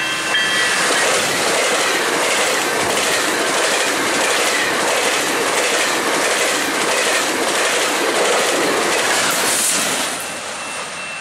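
GO Transit bilevel passenger train passing close at speed: a loud, steady rush of wheels on rail with a regular clickety-clack from the rail joints. The sound drops away near the end to a quieter level crossing, where the crossing bell is ringing.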